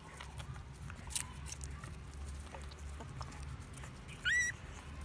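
Puppies nursing from their mother, with small scattered suckling clicks, and one short, high squeal from a puppy about four seconds in.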